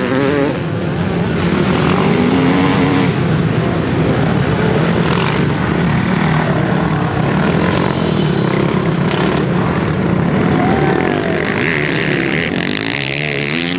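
Dirt-bike engines running hard on the race track, their pitch rising and falling as the riders rev through the course.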